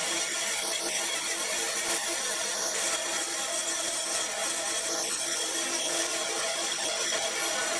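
A woodworking power tool running steadily, a constant high hiss with a steady hum under it.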